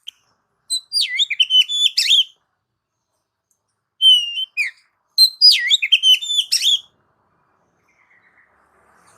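Oriental magpie-robin (kacer) singing: three phrases of quick, varied whistled notes sliding up and down, the last phrase the longest.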